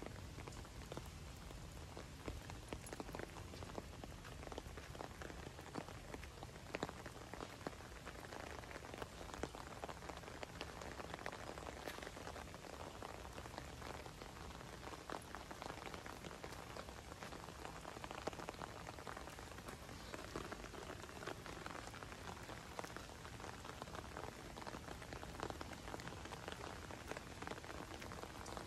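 Steady rain falling: an even hiss scattered with many small drop ticks.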